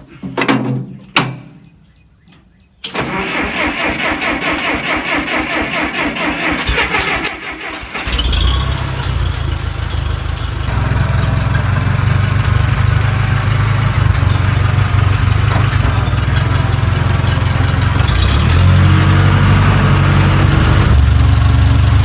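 1964 Case 530 propane tractor's four-cylinder engine being cranked by its starter with a fast, even rhythm for about five seconds. It catches about eight seconds in and keeps running steadily.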